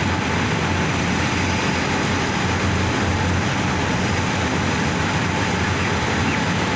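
Steady machinery drone with a low hum and a faint steady whine, unchanging throughout.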